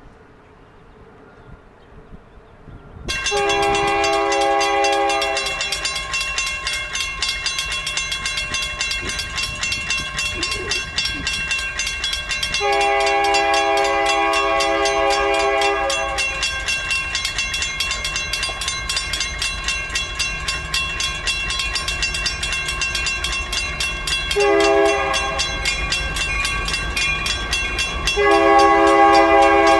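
Horn of Canadian National SD60 #5408 leading a freight train, sounding the grade-crossing signal as it approaches: long, long, short, then long. Under the horn a bell rings rapidly and without a break. Both start abruptly about three seconds in, after faint outdoor background.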